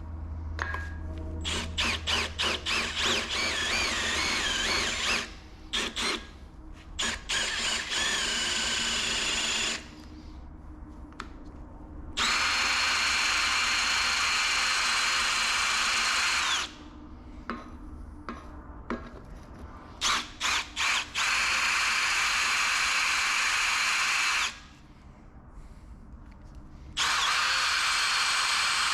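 Electric drill boring a 3/8-inch hole in oiled metal, running in long stretches with short trigger blips in between and a few pauses of two or three seconds; the bit is cutting.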